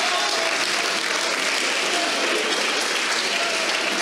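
Audience applauding: a steady, dense wash of many hands clapping, with a few voices faintly in it.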